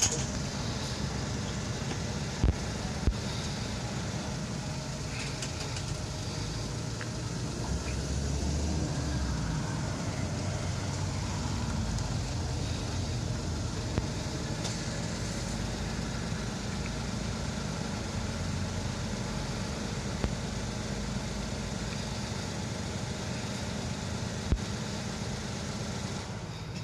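Steady low outdoor background rumble of the road-traffic kind, with a few sharp clicks, twice in the first few seconds and twice more later.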